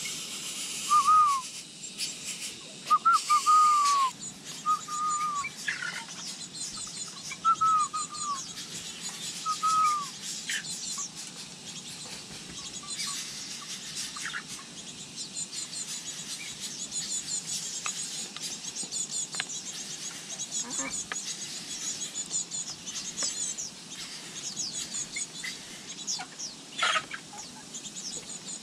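Birds calling: about six clear, short calls that rise and fall in the first ten seconds, over many faint, high chirps that go on throughout.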